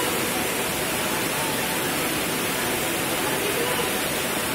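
Floodwater rushing down a flooded street: a steady, even rush of water.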